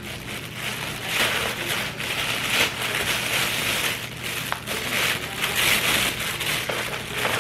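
Thin plastic carrier bag crinkling and rustling as hands grip it, open it and pull at it, the rustle coming and going in uneven spells with a few sharp crackles.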